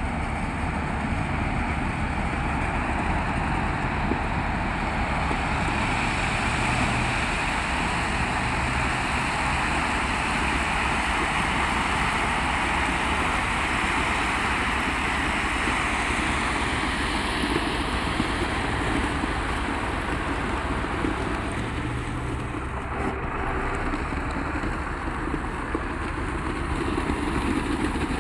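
Caterpillar 140H motor grader's diesel engine running steadily as its blade pushes and spreads crushed-stone track ballast, with a continuous crunching, grinding hiss of the stones under the blade and tyres.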